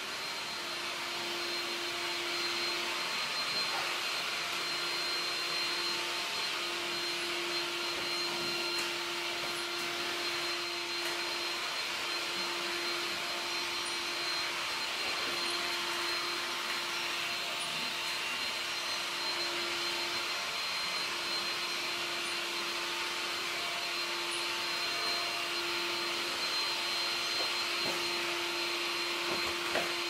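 Makita backpack vacuum running steadily, its motor giving a steady hum and a high whine over the rush of air as its wand and floor tool are worked across a hardwood floor.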